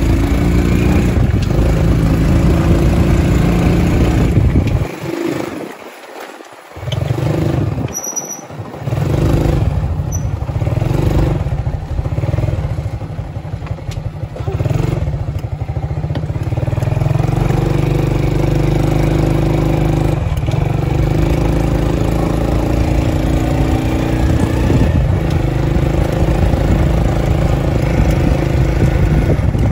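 Rusi Yuri 110 Wave-style motorcycle's 110 cc single-cylinder four-stroke engine running under way, heard from the rider's seat. The sound drops away twice briefly, about five and eight seconds in, then runs steadily. This is a road test of the bike's complaint that the power cuts in and out and it cannot climb hills.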